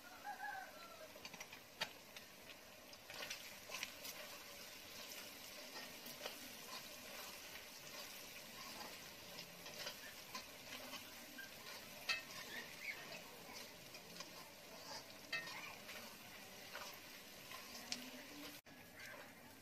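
A spatula stirring and scraping chunks of mutton frying in a little oil in a metal kadai: a soft sizzle under repeated scrapes and taps against the pan.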